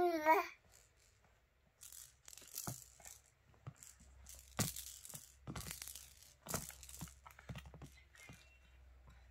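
A baby's brief wail cuts off about half a second in. Then come irregular short bursts of crinkly rustling and tearing from material being handled.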